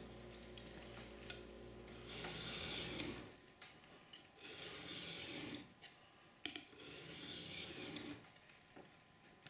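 Dull, rusty knife blade drawn across a water-wetted diamond sharpening stone in slow rasping strokes, about one every two and a half seconds, with a few light clicks between them; the edge is just beginning to form.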